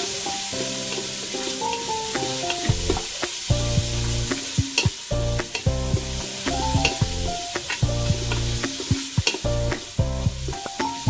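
Chicken pieces sizzling in butter in a metal pot, stirred and scraped with a spatula that clicks against the pot. Background music with held notes plays over it, a bass line coming in a little under three seconds in.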